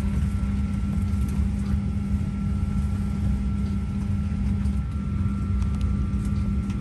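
Steady low mechanical hum over a constant rumble, with faint high steady tones, as of an engine or large air-handling machinery running.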